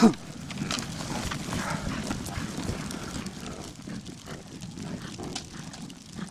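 Reindeer moving on dry tundra ground: hooves trampling and scuffing, with many small clicks, as a lassoed reindeer bull strains against the rope.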